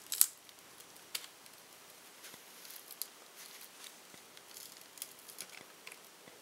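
Small sharp clicks and crackles of a Nexus 7 tablet's cracked front glass and digitizer being pried loose from its adhesive with a plastic pry tool. The loudest is a sharp click just after the start, and there are brief scrapes later on.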